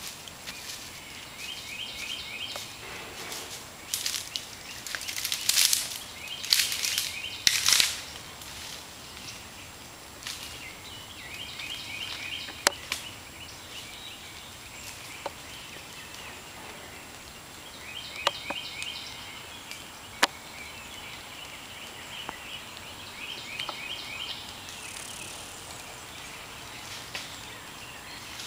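Woodland ambience: a bird repeatedly sings short phrases of rapid high notes, a few seconds apart, over a steady hiss. Loud bursts of rustling come about four to eight seconds in, and a few sharp clicks sound here and there.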